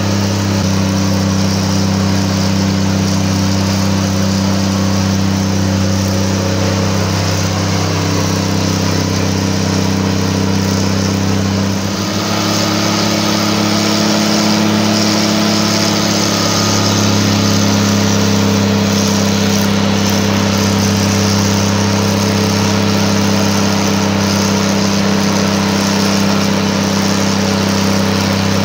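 Diesel engine of a GE 80-ton center-cab switcher locomotive running hard and steadily under load, on only one of its two Cummins diesels after the other failed. About twelve seconds in, it briefly dips and then comes back slightly louder.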